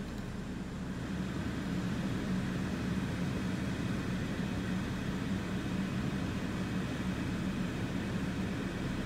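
Steady wind rushing during a hurricane's outer bands, with a constant low hum underneath. It grows a little louder about a second in.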